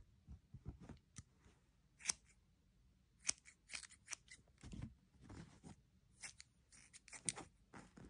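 Scissors snipping through long hair: several short, sharp snips at irregular intervals, with soft rustling of hair and bedding between them.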